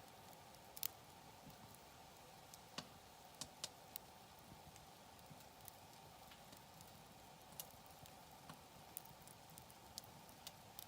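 Wood campfire crackling faintly, with sparse irregular sharp pops and snaps, the loudest about a second in and a few more around three to four seconds.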